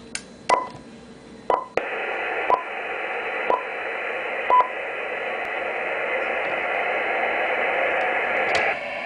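Five short clicks about a second apart, each with a brief beep, then a steady radio receiver hiss starting about two seconds in, played through a homemade acoustic-resonance CW speaker built from a plastic cup. The hiss drops and turns duller near the end.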